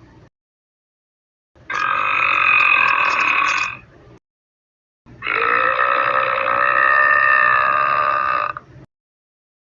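A person belching twice, each burp long and drawn out: the first lasts about two seconds, and after a short pause the second lasts about three and a half seconds.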